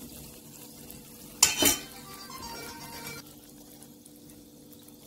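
A sharp kitchen clatter about a second and a half in, as of a utensil or bottle knocked against the counter. It is followed by faint sounds of oil being poured into a plastic mixing bowl.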